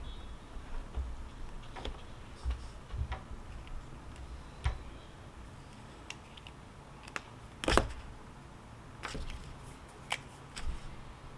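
Scattered small clicks and taps at irregular intervals, with one louder knock a little under eight seconds in, over a faint low rumble.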